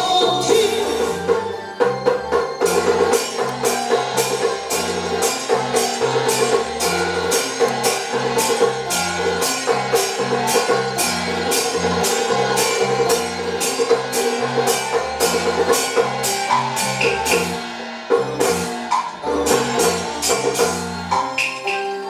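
Taiwanese opera (gezaixi) band accompaniment playing an instrumental passage between sung lines: a sustained melody over a stepping bass line and a steady percussion beat of about two strokes a second.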